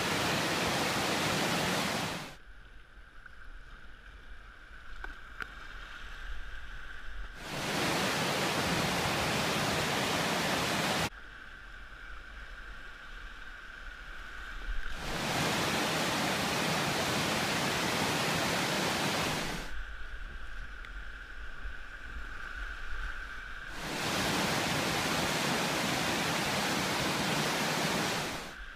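Whitewater of a class 1 rapid rushing. It switches abruptly back and forth four times between a loud, even hiss heard from the bank and three quieter, muffled stretches of rushing water picked up by a camera on a packraft riding the waves.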